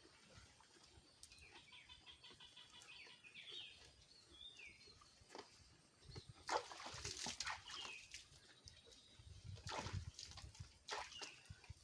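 Faint bird chirps early on, followed by a few louder bursts of rustling or splashing noise about halfway through and again near the end.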